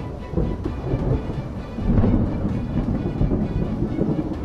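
Thunder rumbling low and continuously, rising and falling in strength, in the stormy sky after a tornado.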